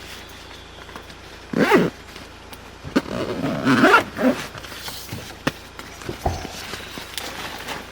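A zipper pulled twice: a short pull about one and a half seconds in and a longer, uneven pull around three to four seconds in, with small clicks and knocks of handling in between.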